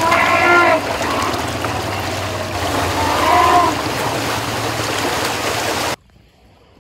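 River water rushing and splashing around elephants wading in it, with a pitched voice calling out twice, briefly near the start and again about three seconds in. The sound drops off sharply near the end.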